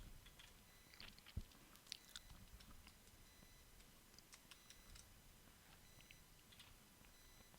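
Near silence: faint room hiss with scattered soft clicks of a computer mouse, more of them in the first half.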